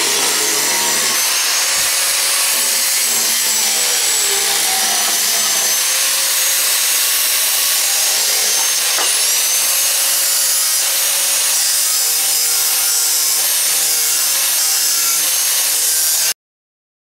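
Electric angle grinder with a cut-off disc cutting through a steel truck leaf spring: a steady, loud grinding hiss with a high whine, which cuts off suddenly near the end.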